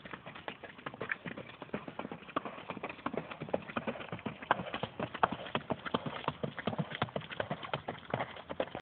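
Hoofbeats of a flat-shod palomino Tennessee Walking Horse filly moving at gait on a dirt track: a quick, even run of shod-hoof clip-clops that grows louder after about three seconds.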